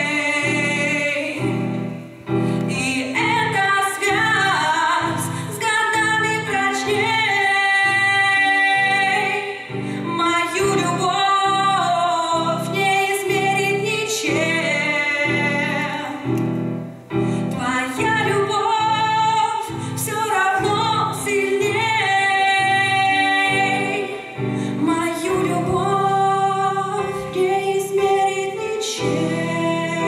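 A woman singing a slow song while accompanying herself on a Casio Privia digital piano, which plays steady repeated chords under the melody.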